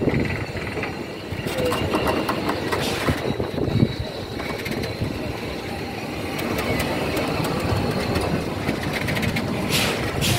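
A heritage train standing at the platform: a steady low mechanical rumble, with short hissing noises about two to three seconds in and again near the end.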